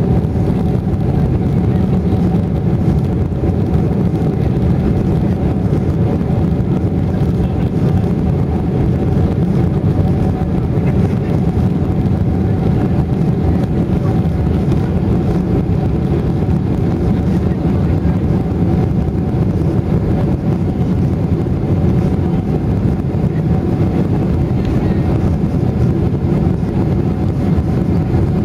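Steady engine and airflow noise heard inside the cabin of a Boeing 747-400, its four Rolls-Royce RB211 turbofans running, with a couple of steady tones in the mid range and no change in level.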